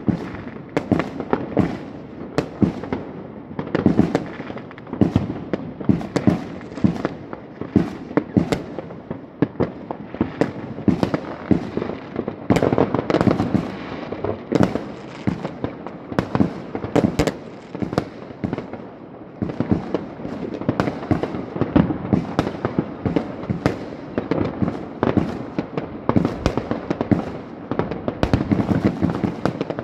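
Many fireworks going off at once from many spots: a dense, continuous run of bangs and crackling pops, several a second, with no let-up.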